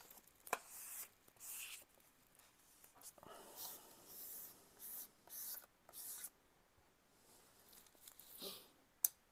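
A card wiped in repeated short scraping strokes across a wet palette's hydro paper sheet lying on a soaked sponge, pushing out the air bubbles trapped under the paper. The strokes are faint and come at about two a second, stop a little past halfway, and a sharp click comes near the end.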